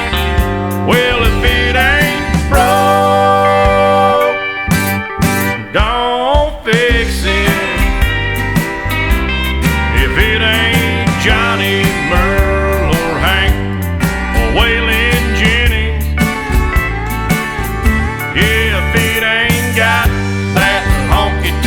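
Instrumental break of a country song: a lead line with sliding, bending notes over steady bass and drums.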